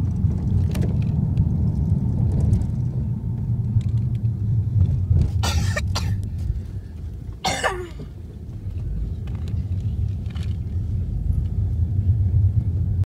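Low rumble of a car's engine and road noise heard from inside the cabin while driving, easing briefly about seven seconds in. Two brief coughs about five and seven and a half seconds in.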